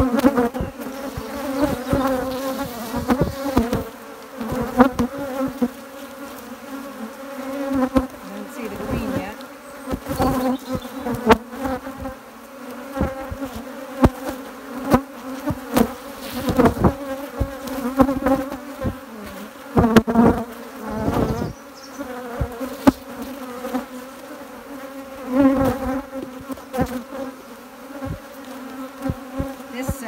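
Swarm of honeybees buzzing around an opened hive as frames of comb are lifted out, a loud steady hum with a low pitch, broken by frequent short knocks and bumps.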